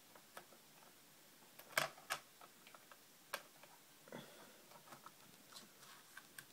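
Small screwdriver backing a tiny screw out of a Lenovo ThinkPad T520's plastic screen bezel: faint, irregular clicks and ticks of the tip in the screw head and against the plastic, with two louder clicks close together about two seconds in and another a second later.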